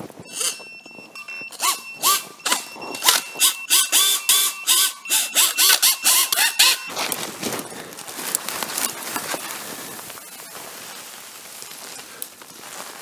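An FPV racing drone caught in a tree, its motors blipped in short bursts about three times a second for some five seconds, each burst a brief rising whine, over a steady high thin tone: the throttle being punched to shake it free. After that comes a rustling hiss.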